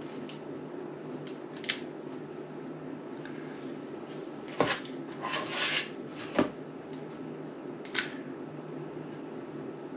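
A spoon clinking and tapping against a muffin tin and a mixing bowl while batter is scooped into the cups: a few single sharp taps and one short scrape, over a steady low room hum.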